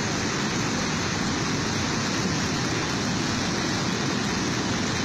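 Muddy floodwater torrent rushing, a steady dense noise with no breaks.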